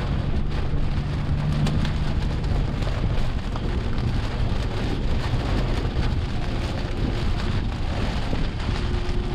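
Heavy rain falling steadily, a dense patter of drops striking a hard surface, with a low steady hum underneath.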